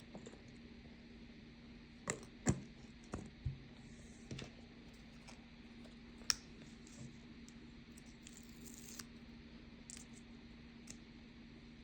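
Scattered light taps and clicks of small objects being handled, several in the first half and a sharp one about six seconds in, over a steady low hum.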